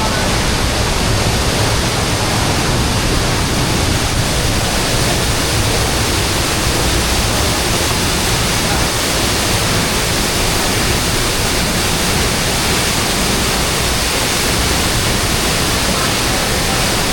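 Waterfall on a river, its water rushing as a loud, steady noise with no breaks.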